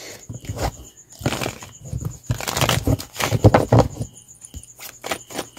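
A deck of cards being shuffled by hand: quick papery rustles and slaps, heaviest about a second in and again from two to four seconds in, then lighter clicks.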